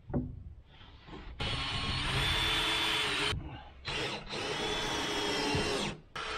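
Power drill driving screws to tack up a trim piece: two steady runs of about two seconds each with a faint high whine, stopping sharply, and a third run starting at the end.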